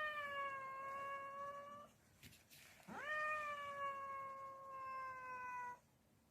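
A cat meowing twice in long, drawn-out calls. The first ends about two seconds in. The second starts about a second later with a sharp upward swoop, then slowly sinks in pitch.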